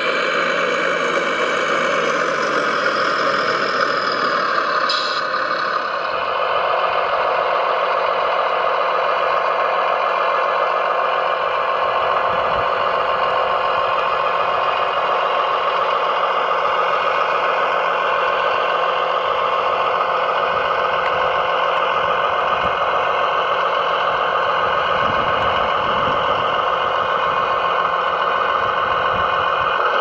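Radio-controlled model construction machines running, a model Liebherr 970 tracked excavator among them: a steady mechanical whine with engine-like running sound, changing in character about five seconds in.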